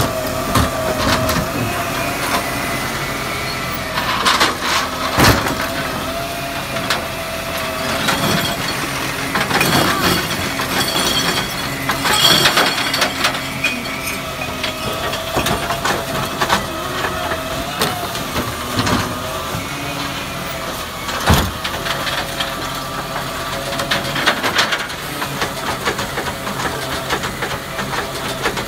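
Raptor side-loading recycling truck working its automated arm with the engine running and a steady whine underneath, while bins are lifted and tipped. Sharp knocks and clatters come several times, loudest about a third of the way in and again about two-thirds in, as bins and recyclables drop into the hopper.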